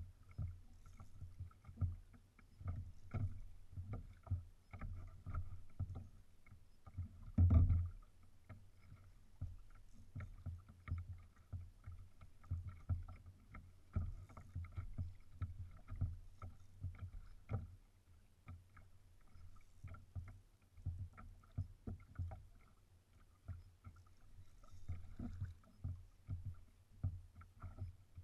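Small waves slapping and knocking against a fishing kayak's hull in an uneven patter, several slaps a second, with one heavier knock about seven and a half seconds in.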